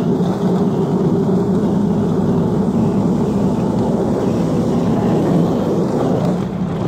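Steady engine and road noise from a truck driving along while towing a riding lawn mower on a chain.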